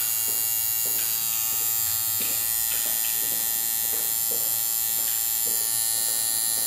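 Hand-built two-coil tattoo machine running in the hand: a steady electric buzz as the coils drive the armature bar and needle up and down.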